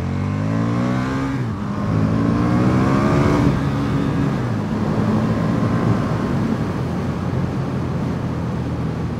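KTM 1290 Super Duke R's V-twin engine pulling hard through the gears. Its pitch climbs, drops at a shift about a second and a half in, climbs again, drops at a second shift about three and a half seconds in, then settles into a steadier run at speed.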